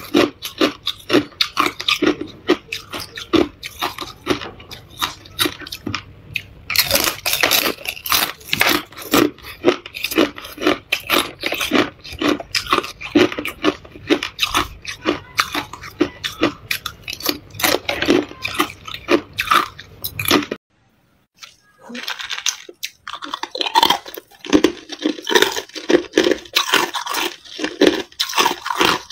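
Thin sheets of clear ice being bitten and chewed close to the mouth: rapid, crisp crunching and cracking, many crunches a second. About twenty seconds in it stops for a second or two, then the crunching of ice starts again.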